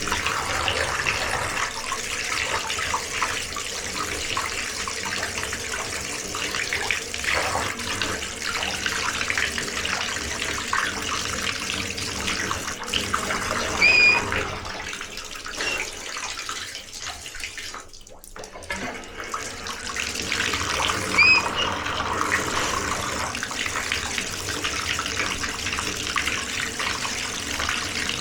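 Water running from a tap, a steady rush that eases briefly in the middle before running full again. Two short, high squeaks are heard, about halfway and about three quarters of the way through.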